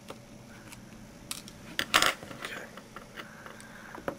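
Small hard plastic clicks and taps from a Nokia N73's casing and internal parts being handled and worked loose by hand, with a louder clatter of several clicks about two seconds in.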